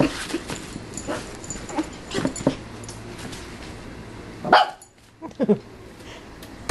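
Dog giving short, separate yips and barks: several small ones in the first couple of seconds, then a louder bark past the middle followed by two more.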